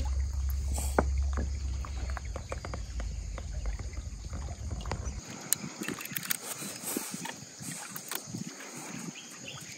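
Riverside ambience: a low wind rumble on the microphone for about the first five seconds, then water lapping with scattered light clicks and taps.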